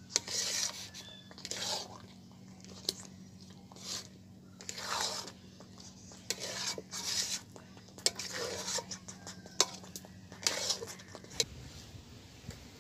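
Metal spatula scraping and stirring thick semolina halwa around a metal wok, in repeated strokes about once a second with a few sharp clicks of metal on the pan. The halwa is being stirred constantly over the heat so it does not stick to the bottom and burn. A steady low hum runs underneath and stops near the end.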